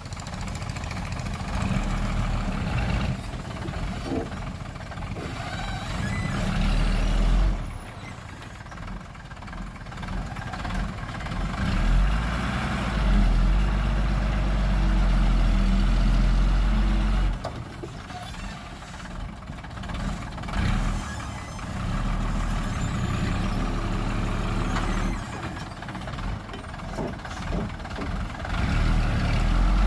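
Heavy diesel engines of earthmoving machinery running, with the engine note surging louder under load about seven seconds in and again for several seconds mid-way.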